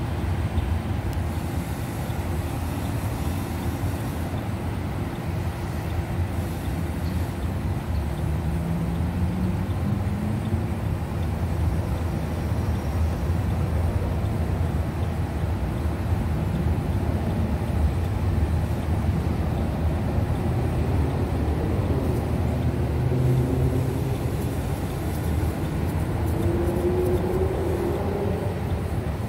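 Freight train of covered hopper cars rolling past, a steady low rumble of wheels on rail. It is mixed with road traffic noise, including a rising engine note about nine seconds in and another near the end.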